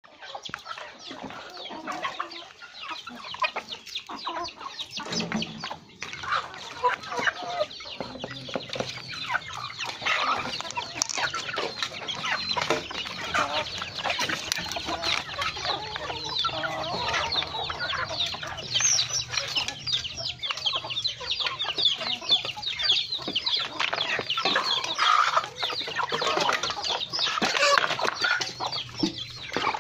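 Flock of chickens, hens with chicks and young birds, clucking and calling continuously as they feed.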